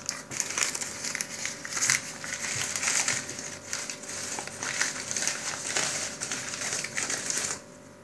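Crumpled paper packing crinkling and rustling as it is pulled out by hand, stopping abruptly shortly before the end.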